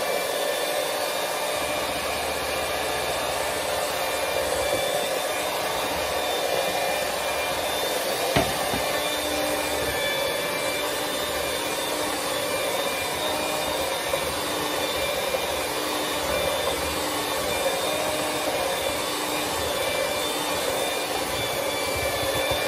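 Electric hand mixer running steadily at a constant speed, its beaters whirring through cream cheese pound cake batter as eggs are beaten in. One sharp tap about eight seconds in.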